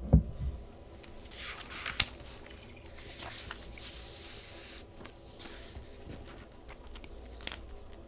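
Close-up handling noise: a few low bumps at the start, then paper and clothing rustling near the microphone in two stretches, with a sharp click about two seconds in and a light tick near the end.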